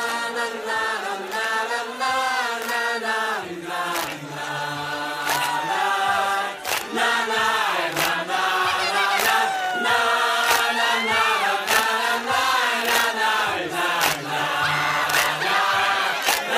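Choir singing a festive New Year song, several voices together over music with a steady percussive beat.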